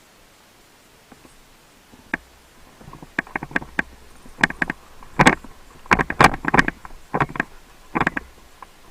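Airsoft gunfire: sharp cracks in quick runs of two to five shots. They start about two seconds in and grow louder and denser toward the middle.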